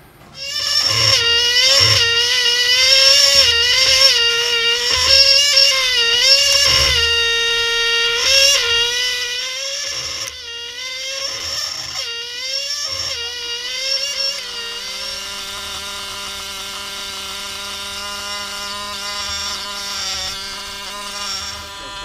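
Pneumatic air scribe (fossil-preparation engraving pen) buzzing against stone, starting abruptly. Its high whine dips and wavers in pitch, then runs steadier from about two-thirds of the way in.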